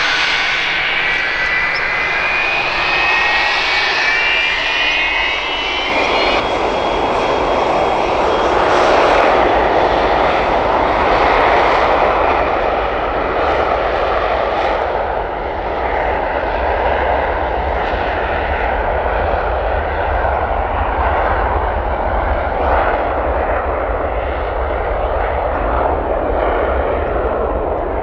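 Large aircraft engines running loud. For about six seconds a high, slowly rising whine sits over the roar. Then the sound changes suddenly to a steady, dense engine roar.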